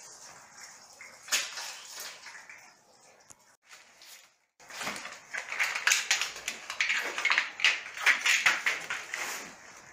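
Irregular scraping and rustling of hands-on installation work, with a brief drop almost to silence about four seconds in, then denser scraping.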